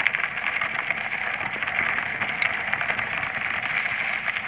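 Steady hissing, crackly noise of riding a bicycle, picked up by a handheld phone's microphone, with one sharp tick about halfway through.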